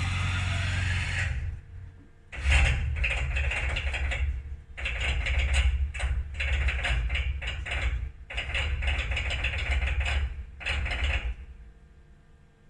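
Haas CNC machine's Z axis running with an abnormal mechanical noise, in several runs of a few seconds split by short pauses, then stopping near the end. This is the Z-axis noise fault on the machine.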